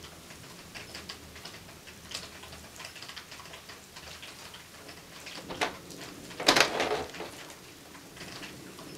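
Rain during a thunderstorm, pattering and dripping as a scatter of small ticks. A sharp crack comes about five and a half seconds in, and a louder, slightly longer one about a second later.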